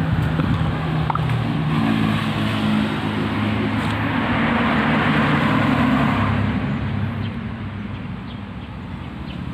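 A motor vehicle passing along the road: engine hum and tyre noise swell to a peak about five to six seconds in, then fade.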